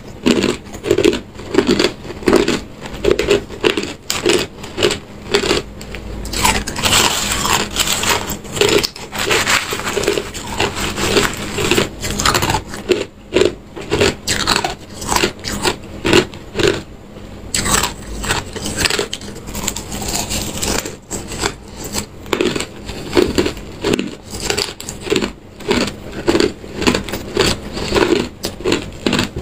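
Clear ice being crunched between a person's teeth close to the microphone: rapid, repeated crunches, about two or three a second, that keep going throughout.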